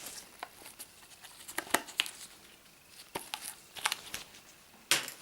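Plastic packaging of a set of SDS drill bits being handled and pried at, giving irregular crinkles and sharp plastic clicks while it refuses to open.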